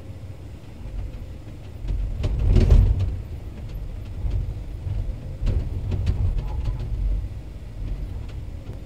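Komatsu PC210 excavator's diesel engine and hydraulics working under load, low-pitched and rising and falling in level, loudest about two and a half seconds in, while the bucket digs at the sides of a hole through frozen ground.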